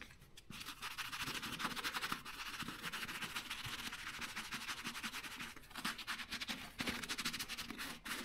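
A foam sponge scrubbing oil into a leather boxing glove: steady, rapid scratchy rubbing strokes on the leather, with a brief pause a little past halfway.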